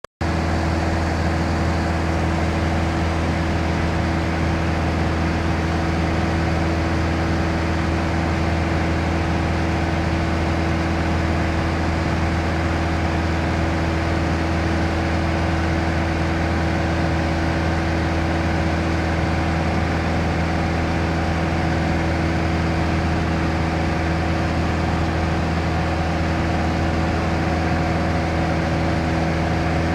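Touring aircraft's piston engine and propeller running steadily in cruise, heard from inside the cabin as an even, unchanging hum with a strong low tone.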